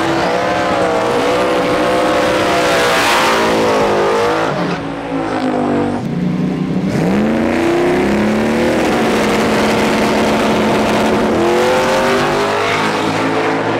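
Single-turbo Hemi V8 drag-car engine revving hard, its pitch rising and falling several times, with a short drop about five seconds in and another climb near the end.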